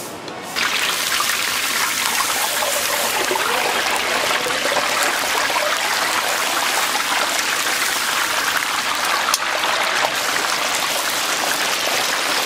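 Chicken deep-frying in hot oil: a loud, steady sizzle with fine crackle that starts suddenly about half a second in.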